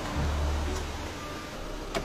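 Car engine running with a low rumble as the SUV pulls up and stops, then a single sharp click near the end as its driver's door is opened.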